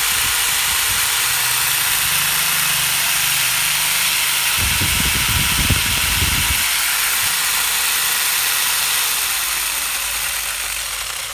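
Electric angle grinder fitted with a chainsaw bar and chain, switched on and spinning at full speed: a loud hissing run with a steady whine. A low rumble comes in for about two seconds midway, and near the end the whine falls in pitch as the grinder winds down.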